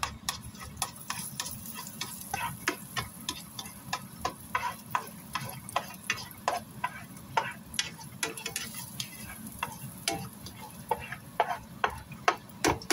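Minced garlic frying in oil in a nonstick frying pan: a steady sizzle broken by many sharp, irregular pops and crackles, several a second.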